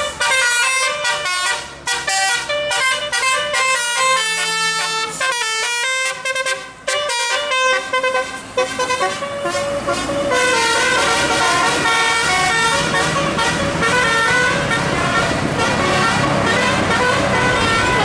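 Bus 'telolet' musical air horns playing quick tunes of stepped notes. From about ten seconds in, the horn tune goes on over heavier engine and road noise.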